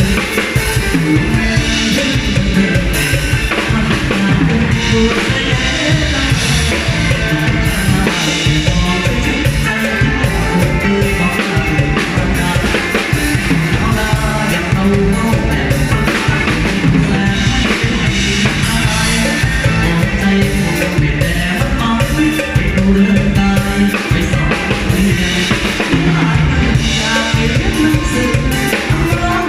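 Live band music with a drum kit keeping the beat.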